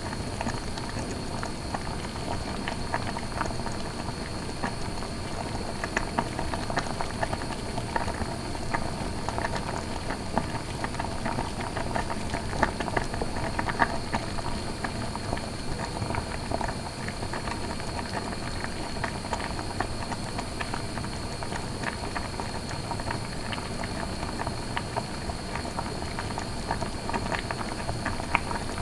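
Food boiling in a pot: a steady bubbling with many small irregular pops.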